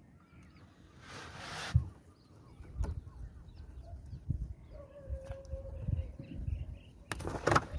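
Fishing net being gathered and handled in a small boat: low knocks and thuds against the hull, with two short bursts of rustling, about a second in and near the end. Birds call faintly in the background.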